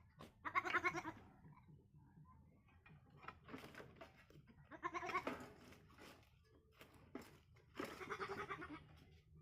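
Baby goat (kid) bleating, four calls about a second or less each, with a quavering tremble; the second call is softer.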